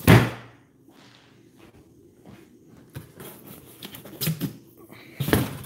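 A heavy cardboard shipping box set down with a loud thump at the start, then cardboard boxes being handled: rustling and light knocks, with a louder scrape of cardboard near the end.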